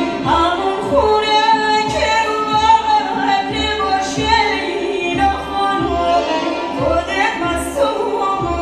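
Persian dance music: a woman's voice singing a winding, ornamented melody over a steady low drum beat of about two beats a second.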